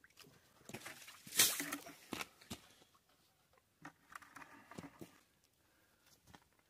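Muddy water being bailed out of a flooded post hole with buckets: scattered scoops, splashes and bucket knocks, with the loudest burst about a second and a half in.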